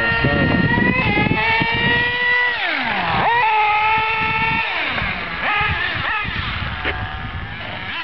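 Remote-control buggy's motor running at speed. Its pitch drops sharply about two and a half seconds in as it slows, then shoots back up as it accelerates, and drops and climbs again about five seconds in.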